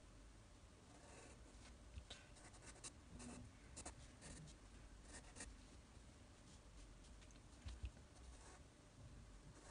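Faint scratching of a graphite pencil sketching on paper, in quick clusters of short strokes that are busiest in the first half. A soft low thump comes near the end.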